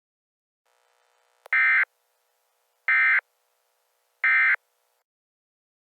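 Emergency Alert System SAME data bursts: three short, buzzy digital tone bursts about a second and a half apart, the end-of-message signal that closes an EAS alert.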